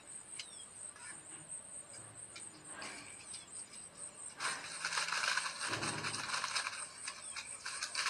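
Rustling and scraping on dry leaves and earth, starting about halfway through as a dense scratching that continues, with a few dull thumps.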